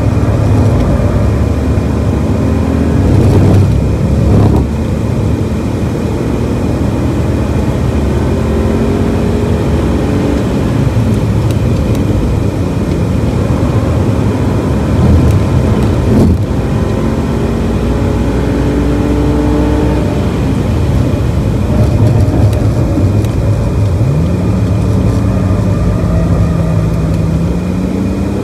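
BMW E46 330i's 3.0-litre straight-six heard from inside the cabin under hard driving on a race track. The engine note climbs and drops back several times as the automatic gearbox changes gear, over steady tyre and wind noise, and settles lower near the end as the car slows.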